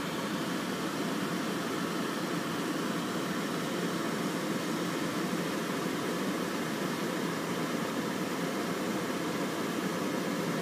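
Steady hum of a car engine idling with its air-conditioning fan running, heard from inside the car.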